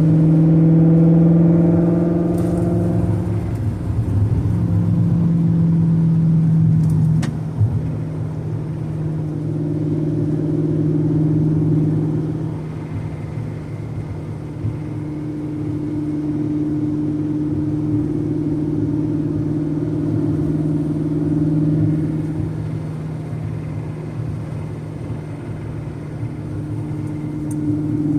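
Car engine idling with a steady hum that swells and eases every few seconds, and a faint ticking noise under it.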